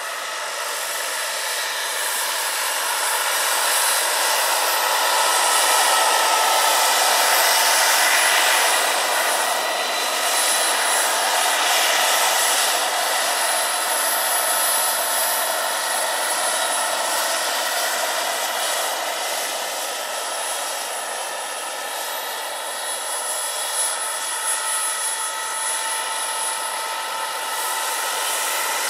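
Jakadofsky Pro 6000 model gas turbine powering a large radio-controlled Aérospatiale Gazelle scale helicopter in flight: a steady high whine with a rushing hiss. It grows loudest about a quarter of the way in, eases off, and swells again near the end.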